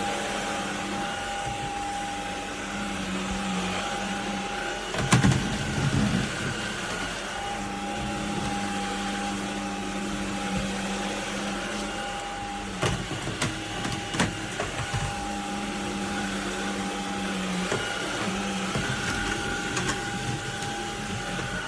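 CHEBIO V18 cordless stick vacuum cleaner running with a steady motor whine and suction hiss. Several knocks and rattles come about five seconds in and again around the middle.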